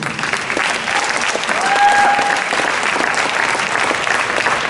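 Audience applauding steadily, with one short high-pitched cheer rising above it about two seconds in.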